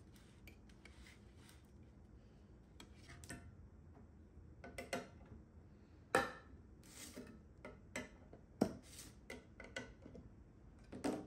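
Faint scraping and clicking of a stir stick working thick gel stain in a metal can, then a metal opener prying the lid off a second metal can, with a few sharper clicks in the second half.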